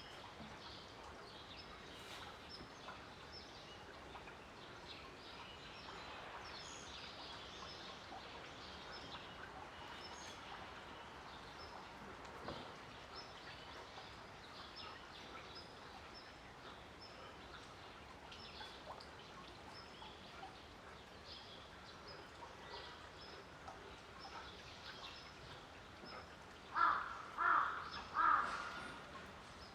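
Outdoor ambience: steady faint background noise with small birds chirping on and off. Near the end, three loud short calls in quick succession, about two a second.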